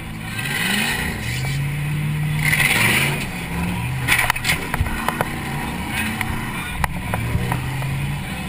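Demolition derby car's engine heard from inside the cabin, revving up and falling back again and again as the car manoeuvres. Several sharp knocks and clanks sound about halfway through.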